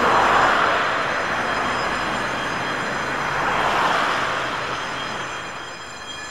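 Traffic passing at a level crossing: a vintage tram with its trailer rolls over the crossing, then cars hiss past close by on the wet road. The noise peaks just after the start and again about four seconds in, then fades.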